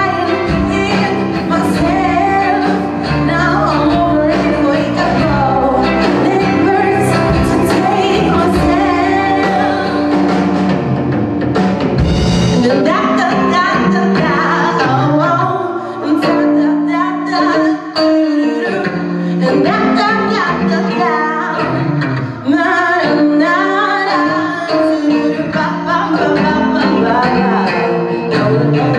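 Live band playing: a female lead vocal over two electric guitars, bass guitar and drum kit. The low end drops back around the middle, where the arrangement changes.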